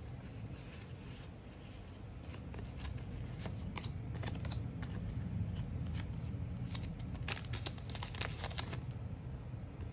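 Trading cards being handled and flipped through: light, scattered clicks and slides of card stock over a low, steady hum.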